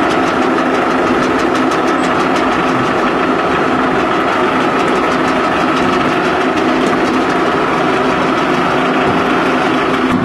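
Concrete batching machinery running, a twin-shaft mixer with its skip hoist lifting the loading bucket: a loud, steady mechanical drone with a constant hum and a rapid, faint ticking over it.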